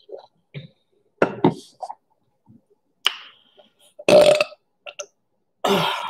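A woman burping out loud several times: short voiced belches about a second in, about four seconds in (the loudest and deepest) and near the end, with small mouth sounds between.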